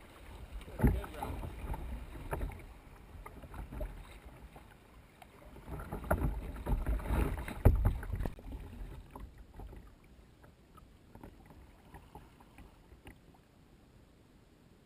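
Kayak paddling through choppy river riffles: water splashing against the bow and paddle strokes, with sharp splashes about a second in and near eight seconds. Near ten seconds the river calms and only faint, scattered lapping and drips remain.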